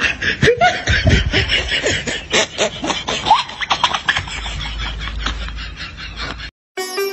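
Laughter: quick repeated giggling pulses with a few short rising squeals. It breaks off about six and a half seconds in, and music starts just before the end.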